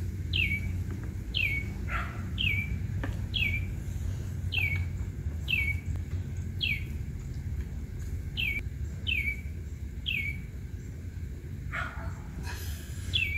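A bird calling over and over: one short, clear note sliding downward, repeated about once a second. Under it is a steady low background rumble, and a brief rustling noise comes near the end.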